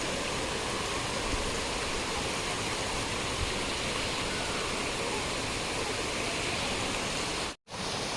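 Waterfall water rushing in a steady hiss, with a brief complete cut-out near the end.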